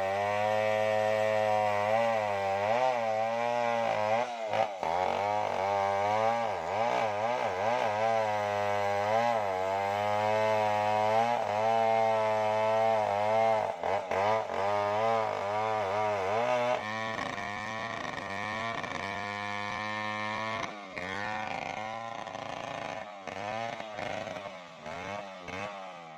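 Stihl MS070 two-stroke chainsaw running under load while cutting, its engine pitch wavering up and down as it bogs and recovers in the wood. It gets quieter and less steady in the last few seconds.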